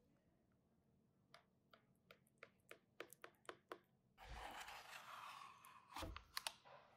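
A knife and a cake server cutting and lifting a slice of baked quiche from a metal baking tray, faint. First comes a run of small crisp clicks, then about two seconds of metal scraping against the tray, then a knock and a couple of clicks near the end.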